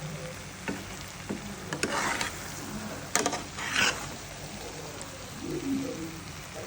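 Food sizzling as it fries in a pan and is stirred with a utensil, with a few scrapes and knocks against the pan, the strongest about two seconds and three to four seconds in.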